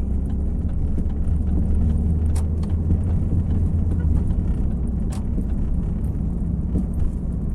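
Ford Focus Mk3 hatchback driving, heard from inside the cabin: a steady low engine and road rumble with a few light clicks.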